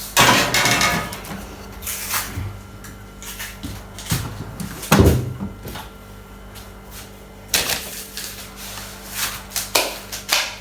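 Irregular knocks and clatters of items being handled and set down on a worktop, with the loudest just after the start and about five seconds in, over a steady low electrical hum.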